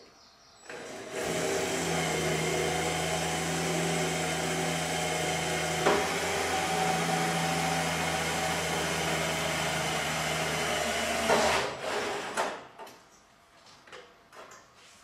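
Electric drill motor running steadily for about ten seconds while boring a new hole, with one sharp click midway. It stops near the end, followed by a few light knocks.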